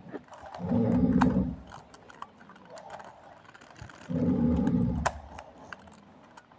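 Quick light plastic clicks of a Gan 356M Lite 3x3 speedcube being turned. Twice, just under a second in and again about four seconds in, a loud low sound lasting about a second covers the clicks.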